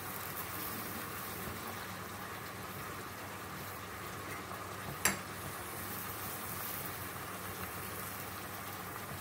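Steady low hiss of a pan of tomatoes and onions cooking in butter on a gas stove, with one sharp click about five seconds in.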